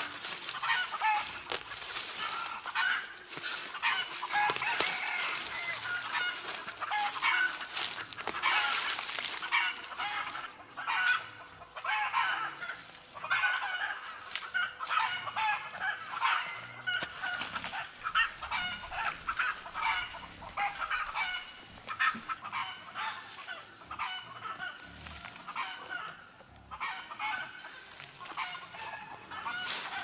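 Chickens clucking, mixed with the rustle and crackle of dry peanut plants being pulled up by hand and heaped.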